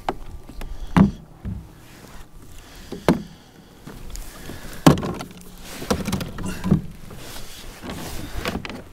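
Scattered knocks and dull thumps of gear, including a landing net, being handled against a plastic fishing kayak's hull, the loudest about a second, three, five and seven seconds in.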